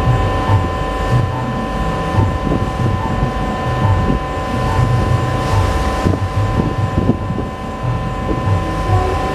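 Ship's diesel engine running steadily: a low, pulsing rumble with a constant hum of steady tones over it, and wind buffeting the microphone.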